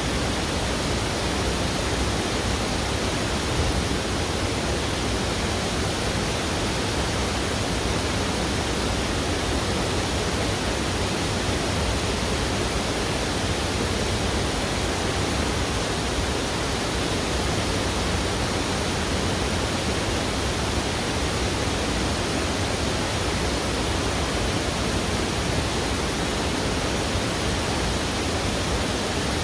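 Steady, loud rush of fast-flowing river water, an even hiss with no breaks.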